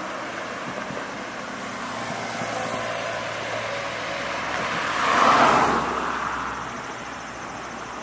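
Steady outdoor background noise with a vehicle passing, its sound swelling up about five seconds in and fading away within about a second and a half.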